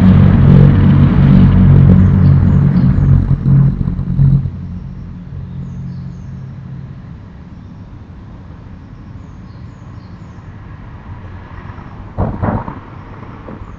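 A motor vehicle's engine running with a steady low hum, fading away within the first five seconds or so, with faint bird chirps behind it. A short burst of knocks comes about twelve seconds in.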